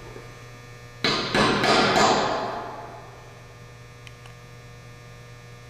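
Claw hammer striking a nail held against the end of an aluminum rod to punch a centering dent for drilling: a quick run of several taps about a second in, with ringing that dies away over the next second. A steady electrical hum runs underneath.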